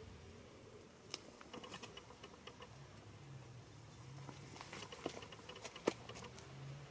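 Sporadic faint clicks and light metal taps as a crucible is handled with steel tongs and lowered into a melting furnace, with one sharper knock near the end.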